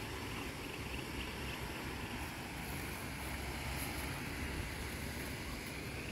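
Steady wind rumbling on the microphone, an even low buffeting noise with no distinct events.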